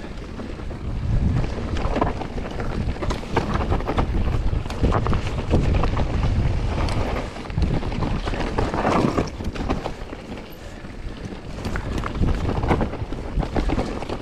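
Wind rushing over the microphone while a mountain bike rides downhill, with the tyres rumbling over rough ground and the bike rattling and clicking over bumps. The rush swells and eases with speed.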